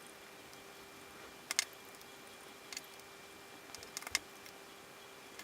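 A few light, sharp clicks and taps, in small clusters with pauses between, from a small screwdriver working the tiny motor screws on a micro drone frame as the motor is detached. A faint steady hum runs underneath.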